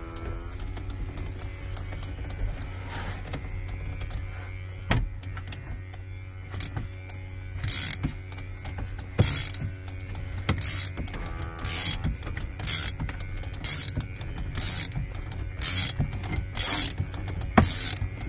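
Windshield-removal cord tool (Equalizer Viper) being ratcheted, winding the cutting cord in to cut through the windshield's urethane bead. The ratchet clicks come in short strokes, sparse at first and about once a second in the second half, over a steady low hum.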